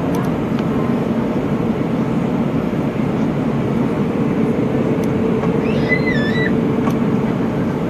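Steady drone of an Airbus A319 airliner in flight, engine and airflow noise with a constant hum running through it. A brief warbling squeak comes about six seconds in.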